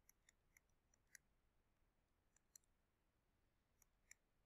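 Near silence broken by a handful of faint, sharp clicks, scattered irregularly, with the strongest just over a second in. These are the taps of a stylus on a touchscreen while handwriting.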